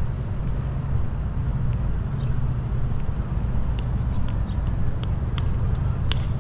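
Steady low outdoor rumble with faint short high chirps and ticks scattered through it.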